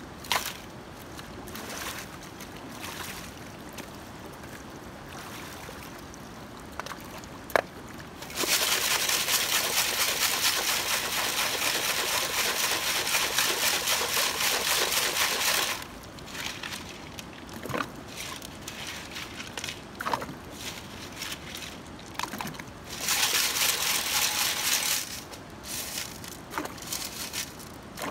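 Water and gravel sloshing as a sieve of river gravel is shaken in a water-filled bucket, classifying it for gold panning. It comes in two spells of steady noise, one of about seven seconds starting about eight seconds in and a shorter one near the end. Between them are a low river hiss and a few sharp knocks of stones.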